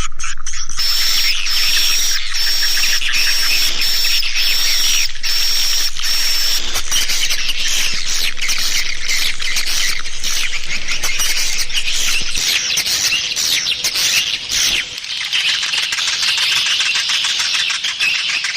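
Dense, fast twittering and chirping of swiftlets, the recorded lure call played to draw swiftlets into a nesting house. A steady high tone runs under the chirps for the first six seconds or so.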